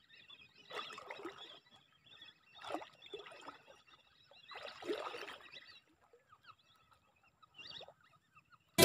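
A person wading through thigh-deep flood water: three splashing, swishing strides about two seconds apart, then a short splash near the end.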